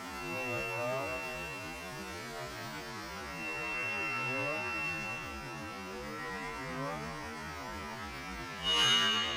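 Electric machinery humming with a wavering pitch, with a thin high whine on and off and a short louder burst near the end.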